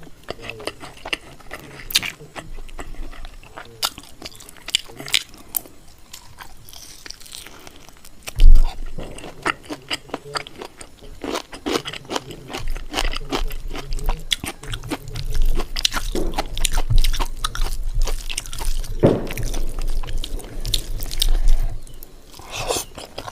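Close-miked chewing and crunching of food, made up of many small sharp clicks that come thicker in the second half. One loud low thump about eight seconds in.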